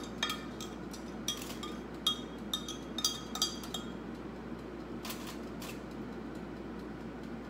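A kitchen utensil clinking and tapping against a glass measuring cup as cilantro marinade is scraped out over foil-wrapped fish: a run of light, ringing clinks through the first four seconds, then two more a little after five seconds.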